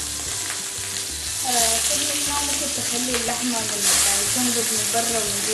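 Pieces of oxtail searing in very hot oil in a stainless steel pan: a loud, steady sizzle that swells about a second and a half in and again near four seconds as more pieces go into the pan. The strong sizzle is the sign the oil is hot enough to sear and seal the meat. Background music with a melody and a steady low beat plays underneath.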